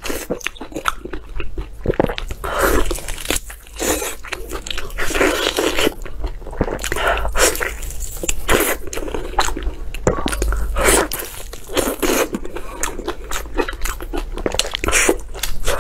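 Eating sounds: biting and tearing braised meat off a long bone and chewing it, a dense run of short sharp mouth clicks and bites.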